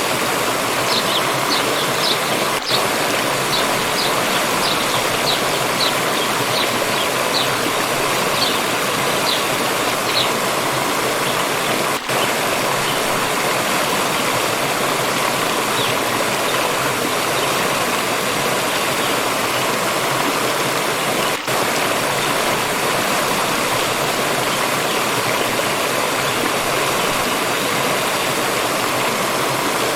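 Stream water rushing steadily. In the first ten seconds a bird gives a row of short, high chirps that slow down and fade.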